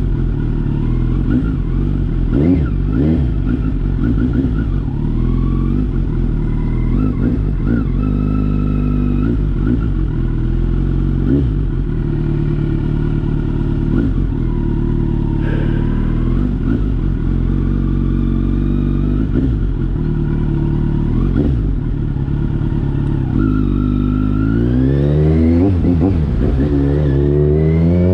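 2021 Kawasaki Z900's inline-four engine running through an aftermarket knock-off Akrapovic exhaust, holding a steady low note with a few short blips of the throttle. Near the end the revs climb steadily.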